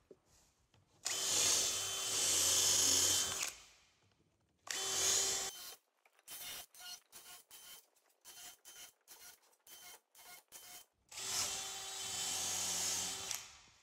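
Cordless drill with a countersinking bit cutting countersinks into the screw holes of a wooden stair tread, to take plugs over the screws. The motor whine and wood cutting come in three runs, the first and last about two and a half seconds long and the middle one about a second, with a string of short bursts in between.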